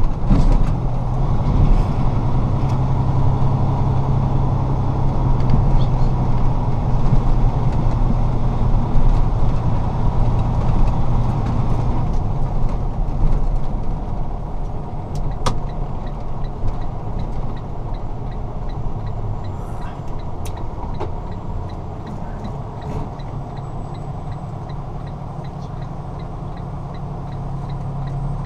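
Semi truck's diesel engine and road noise heard from inside the cab while driving, quieter from about halfway as the truck slows and settles to a steady low hum as it stops at an intersection. A faint, evenly spaced ticking runs through the later part.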